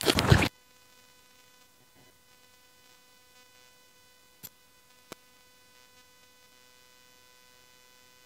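A brief loud burst of noise on the microphone at the very start, then near silence with a faint steady hum and two faint clicks in the middle.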